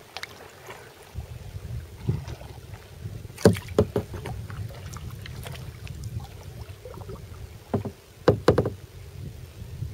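Kayak paddling: the paddle splashes and knocks against the hull in a cluster of sharp strokes a few seconds in and again near the end, over a low steady rumble.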